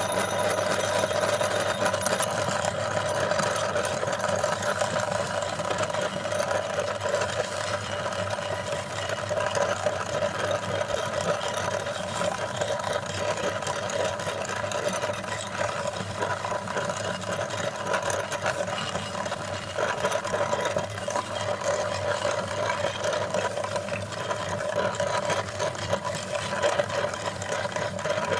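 Motor-driven meat grinder running steadily, grinding hard cookies into crumbs, with an even machine hum.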